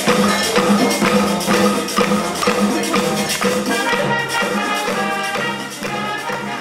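Youth wind orchestra of trumpets, saxophones, flutes, clarinets and tuba playing Latin music over hand percussion such as maracas and congas keeping a steady beat. The music gets a little quieter near the end.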